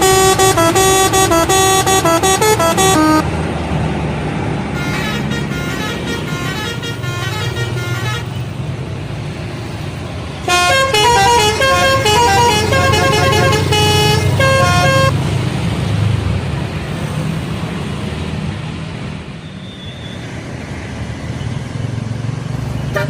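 Bus telolet horn playing short tunes of stepped trumpet notes three times: loud at the start, fainter about five seconds in, and loud again about ten seconds in. This is over the low rumble of a bus engine, which carries on alone for the last several seconds.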